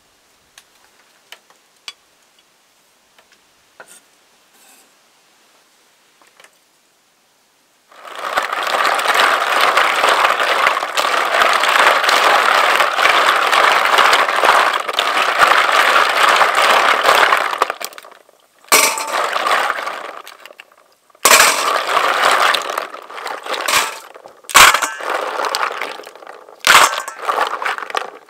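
A mass of freshwater stream snails being scrubbed by hand in a plastic basin of water, their shells clattering and grinding against one another. It starts after several seconds of faint scattered clicks, runs continuously for about ten seconds, then goes on in shorter bursts.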